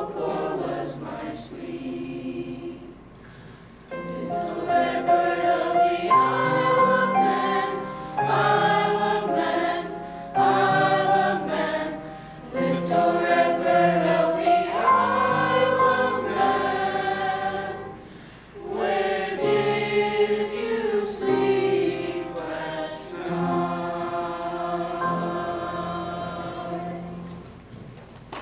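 Junior high school choir singing a slow lullaby in long sung phrases with short breaks between them. The final phrase dies away quietly near the end.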